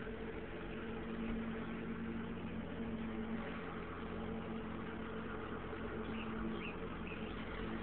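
Steady mechanical hum of a running motor with a constant low drone, and a few faint short high chirps about six to seven seconds in.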